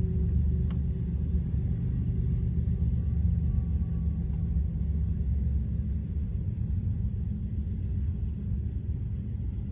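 Freight train cars rolling past on the rails: a steady low rumble of wheels on track.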